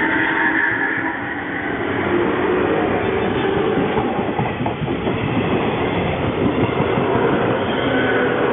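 JNR 201 series electric train departing and running, its drive giving a whining, grating note like an old nose-suspended (tsurikake) motor drive, with wheels clicking over rail joints. The uploader takes the noise for a traction motor in poor condition.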